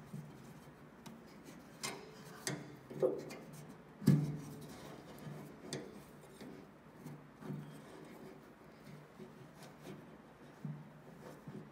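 Hands unscrewing a tractor's fuel sediment bowl assembly: scattered clicks, knocks and rubbing of metal fittings, with the loudest knock about four seconds in.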